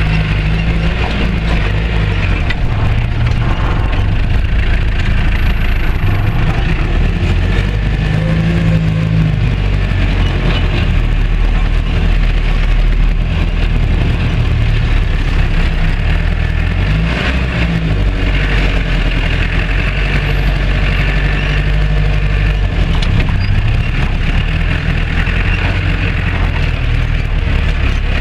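Old Land Rover Series engine driving off-road over rough ground, heard from inside the cab, its pitch rising and falling several times with the throttle, with scattered knocks and rattles.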